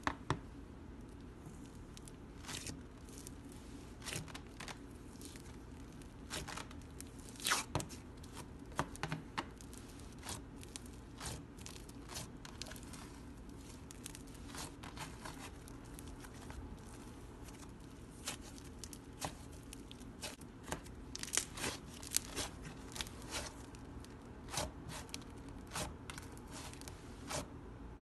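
Thick slime being squeezed, poked and stretched by hand, giving an irregular run of small crackles and pops as trapped air bursts, over a faint steady low hum.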